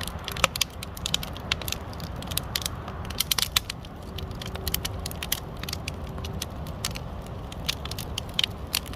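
Wood fire crackling, with frequent irregular sharp pops and snaps from the burning logs over a steady low rumble.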